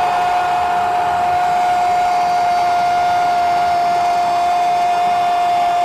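A Brazilian radio commentator's long, held 'gooool' goal shout on one steady high note that sinks very slightly, over a steady background hiss.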